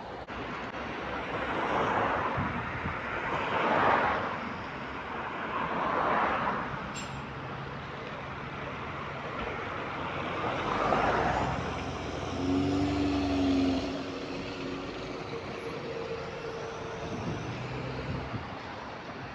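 Bus running on its route: engine and road noise with several swelling rushes in the first half, then a deeper steady drone with a hum that comes in about twelve seconds in and eases off about two seconds later.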